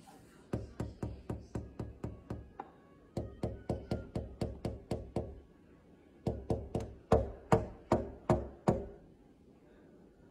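Rapid tapping on window glass in three quick runs of about four taps a second, the last run the loudest.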